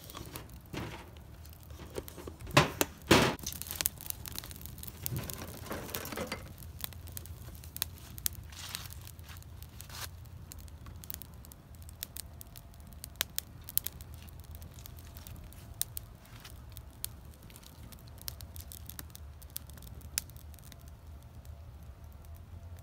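A small wood fire crackling in a perforated tin-can stove, with sparse sharp pops. A few seconds in, two louder knocks and a short rustling, crinkling handling noise stand out.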